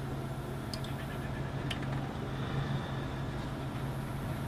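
A steady low background hum, with a few faint light clicks as rubber power steering hoses and a hose clamp are handled by hand.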